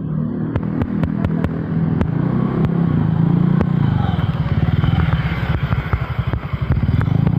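A small engine running with an even pulsing beat, its speed rising and falling a few times. Light clicks and clatter run alongside it.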